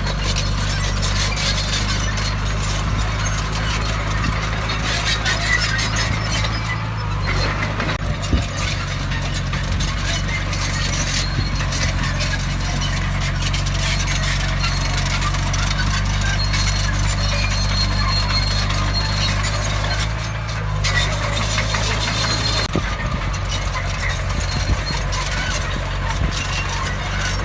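Heavy diesel earthmoving machinery running steadily under load, with a continuous grinding, crackling noise and brief high-pitched squeals a few times.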